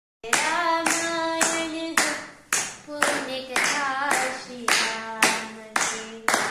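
Hand claps at a steady beat of about two a second, with a voice singing a simple tune along with them.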